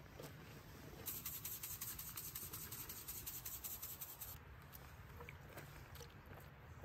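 A seasoning shaker shaken quickly over a cast-iron Dutch oven, a fast scratchy rattle for about three seconds, then a few faint knocks and scrapes of a spoon stirring in the pot.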